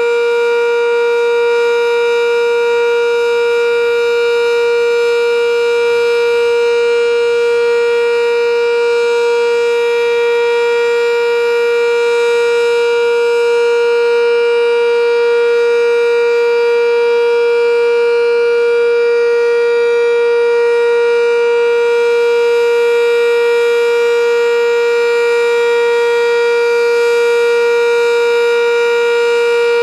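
Sentry 3V8-H outdoor warning siren sounding its steady alert tone at full speed: one loud, unwavering pitch with a rich stack of overtones.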